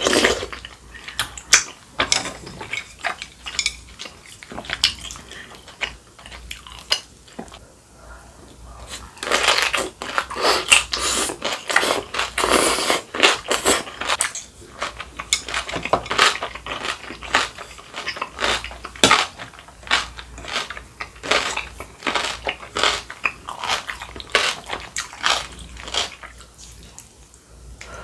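A person eating rice cake soup with dumplings close to the microphone: wet chewing and sipping with many small, irregular mouth clicks, sparse at first and busiest from about a third of the way in until near the end.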